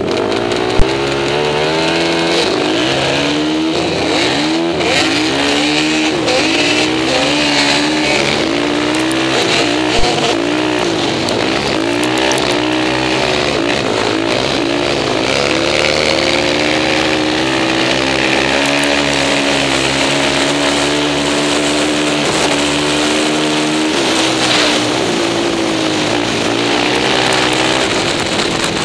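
Suzuki LTR 450 quad's single-cylinder four-stroke engine at full throttle, close up from on the quad, its pitch climbing and dropping back again and again as it accelerates and shifts through the gears. A sharp click about a second in.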